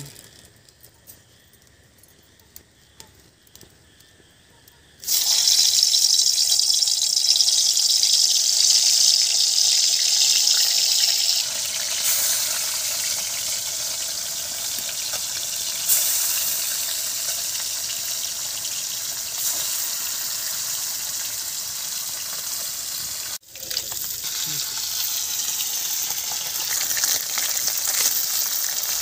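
Small fish frying in hot oil in a kadai: a sudden loud sizzle starts about five seconds in as the fish go into the oil, then carries on steadily while they fry and are stirred. Before that, only a few faint clicks.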